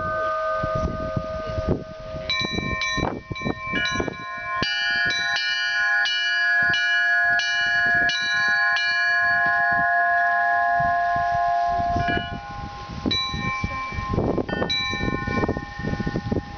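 A set of Russian Orthodox church bells rung by hand in a peal: several bells of different pitches struck one after another in quick strokes, each ringing on under the next. The strokes thin out for a moment about twelve seconds in, then pick up again.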